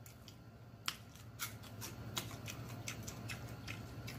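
Quiet crisp crunching and wet mouth clicks of a raw serrano pepper being bitten and chewed close to the microphone, sharp clicks coming every half second or so, over a low steady hum.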